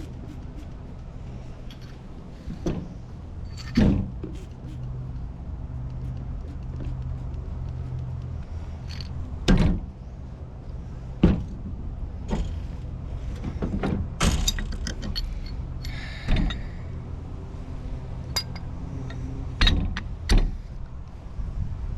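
Scattered sharp metal clanks and knocks as pipe wrenches and threaded pipe fittings are handled and worked loose, over a steady low hum.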